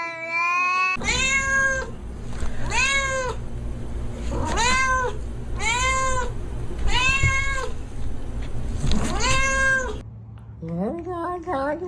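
Domestic cat meowing repeatedly: six separate meows about a second and a half apart, each rising then falling in pitch. Near the end a different, wavering voice-like sound takes over.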